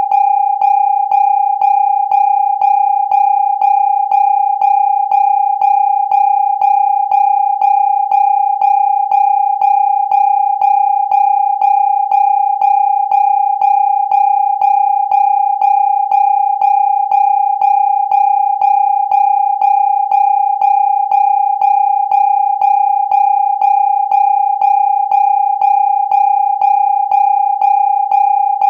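Electronic alarm tone: a single steady high-pitched note held without a break, pulsing slightly with a faint click about twice a second.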